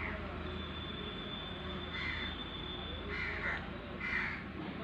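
Crows cawing, several short caws about a second apart from about two seconds in, over a steady low background hum.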